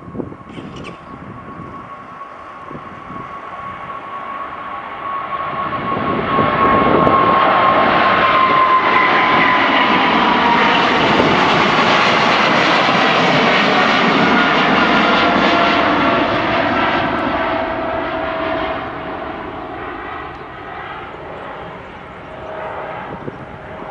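Boeing 777 jet airliner climbing out at takeoff thrust and passing overhead. The jet noise builds, is loudest for about ten seconds, then fades as the plane climbs away, with a whining fan tone that slides slowly down in pitch as it goes by.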